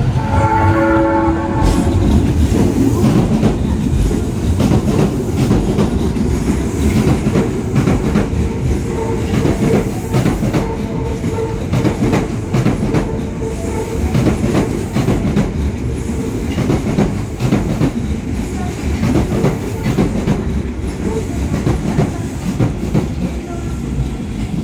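Osaka Metro 21 series subway train opening with a horn blast of about a second and a half as it approaches, then rumbling and clattering over the rail joints as it runs in alongside the platform. A steady whine sounds from about nine to fifteen seconds in.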